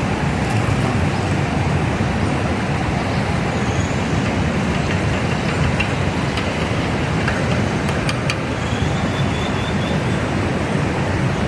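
River rapids rushing steadily, a constant loud wash of water noise. A few faint clicks come about eight seconds in.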